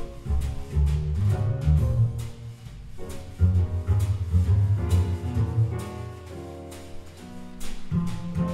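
Double bass playing a line of low notes in a jazz trio, with light taps on the drum kit's cymbals behind it.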